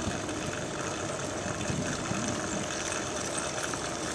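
Steady rushing noise of a moving recumbent bicycle ride: wind buffeting the camera's microphone, mixed with road and drivetrain noise, and a few faint ticks.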